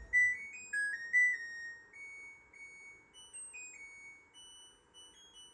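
LG heat pump dryer's end-of-cycle melody, a short tune of clean electronic beeper notes stepping up and down in pitch, signalling the drying cycle has finished. A low rumble from the machine dies away just as the tune gets going.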